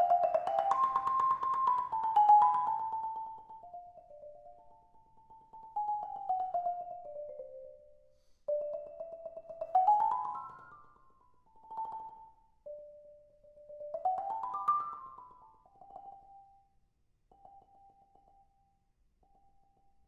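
Concert marimba played with two mallets: rolled notes in phrases that climb and fall, loud at first, then thinning to a few soft rolled notes that die away near the end.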